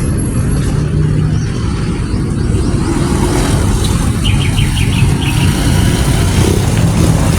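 Motor vehicles running nearby with a steady, heavy low rumble. About four seconds in comes a quick run of short high chirps.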